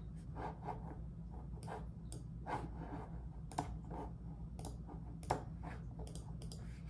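Irregular clicks and taps of typing on a computer keyboard, with a sharper keystroke about three and a half seconds in and another about five seconds in, over a steady low hum.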